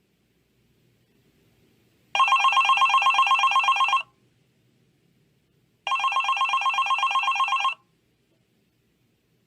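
Telephone bell ringing twice, each ring a rapid trill about two seconds long, with a pause of nearly two seconds between them.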